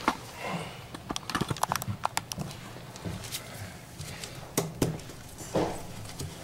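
Scattered sharp clicks and knocks of a gloved hand working loose the plastic coupling nut of a braided steel water supply line under a toilet tank, disconnecting the line.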